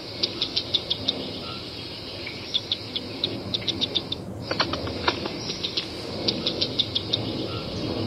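Grey squirrel making quick, sharp clicks in irregular short clusters over a steady outdoor hiss, with a brief break about four seconds in.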